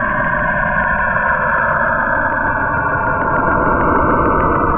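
Saturn's radio emissions as recorded by NASA and converted into audio: a steady, dense droning hiss with faint held tones running through it.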